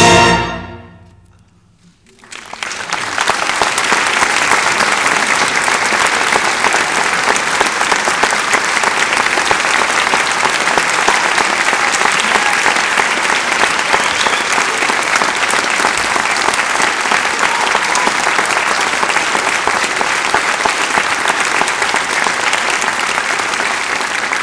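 A wind band's final chord rings away in the hall and dies out within about a second and a half. After a brief quiet moment, an audience breaks into steady applause that carries on to the end.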